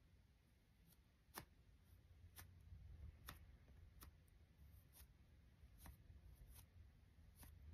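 Near silence with about ten faint, scattered light clicks as two makeup brushes are handled in the fingers; the sharpest comes a little over a second in.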